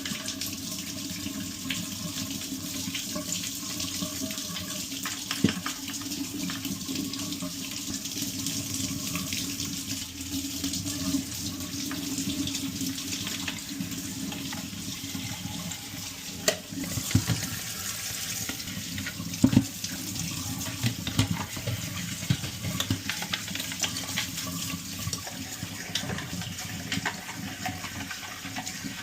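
Tap water running into a sink while the plastic internal parts of a Dyson stick vacuum are washed and brushed under it, with a few sharp knocks a few times along the way.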